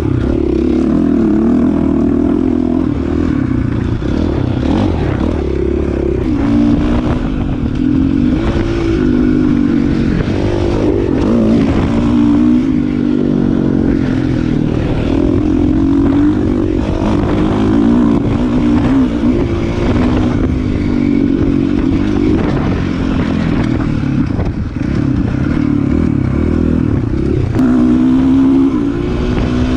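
Dirt bike engine heard from on board, its revs rising and falling continuously as it is ridden off-road, with clattering from the bike over rough ground.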